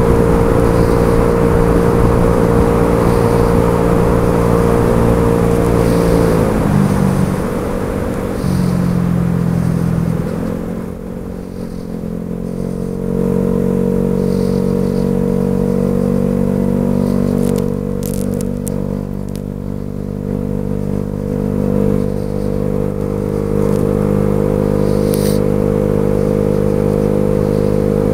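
Baotian BT50QT-9D scooter's 50cc four-stroke 139QMB engine with a DB Killer exhaust, running steadily at high revs under way with wind on the helmet microphone. The revs drop about six seconds in, climb back between ten and thirteen seconds, hold steady, and ease off again near the end.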